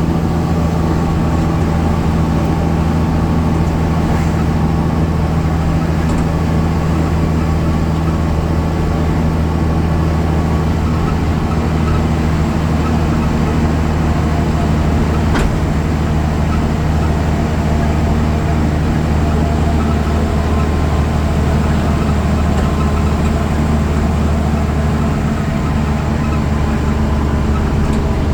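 Deutz Euro 5 diesel engine and ZF driveline of a BredaMenariniBus Avancity Plus city bus running at a steady pitch with a constant low hum. There is a single sharp click about halfway through.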